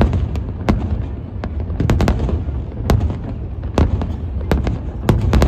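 Fireworks going off: a string of sharp bangs at irregular intervals, some in quick clusters, over a continuous low rumble of the display.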